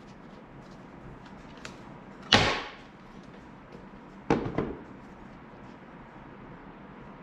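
Two sharp knocks about two seconds apart, the second followed by a few quick smaller rattling knocks, like objects being set down or struck during hands-on work.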